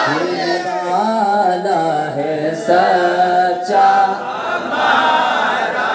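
A man singing a naat unaccompanied into a microphone, drawing out long, wavering held notes.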